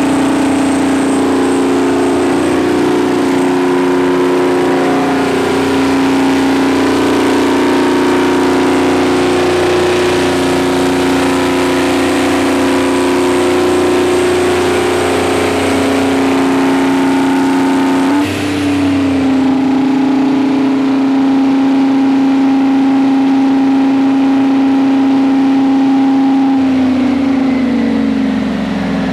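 Detroit Diesel engine of a 600 kW Kohler diesel generator set running loudly at a steady speed. About two-thirds of the way through its note briefly dips and shifts, and near the end the pitch falls as the engine slows down.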